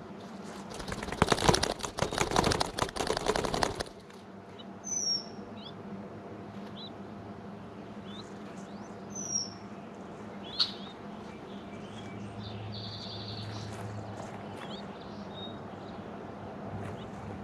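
Mourning doves' wings flapping and feathers rustling right at the nest for about three seconds, a rapid crackling flutter. Afterwards a few faint chirps of other birds can be heard.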